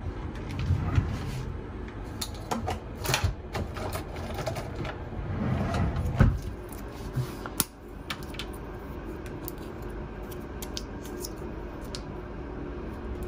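Bathroom vanity cabinet pulled open and things inside handled: a run of clicks and knocks with a sharp knock about six seconds in and another a second and a half later. Then fainter small clicks as a plastic contact-lens blister pack is handled.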